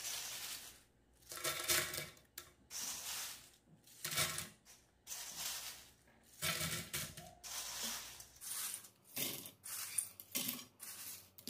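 Crisp pita chips dropped in handfuls onto a ceramic platter, rustling and clattering against the plate in short bursts about once a second.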